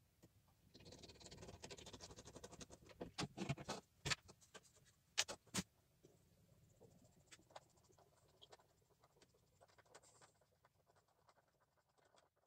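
A small screwdriver driving a fixing screw through model railway track into a wooden baseboard: a dense run of fine, rapid scratchy clicks for about three seconds, a few sharper clicks, then faint scattered ticks.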